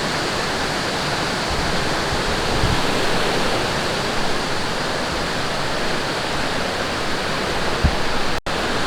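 Mountain stream rushing over rocks, a steady, loud hiss of running water; the sound drops out for a split second near the end.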